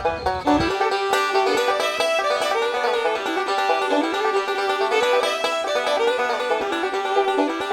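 Background music: an upbeat plucked-string tune in a bluegrass style, with a banjo lead played in quick repeated notes.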